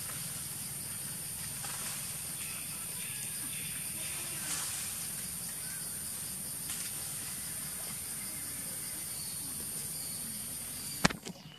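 Steady high hiss of forest outdoor ambience, with a few faint small ticks and rustles. A sharp click about a second before the end, after which the sound is quieter.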